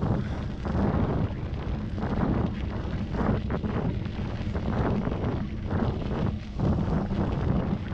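Wind buffeting the microphone of a bicycle-mounted camera while riding, a low rumbling noise that surges and dips unevenly.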